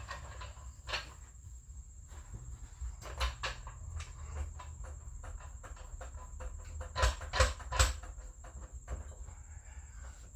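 Scattered clicks and knocks of a floor jack being set under a car, with a cluster of louder knocks about seven seconds in, over a steady low hum.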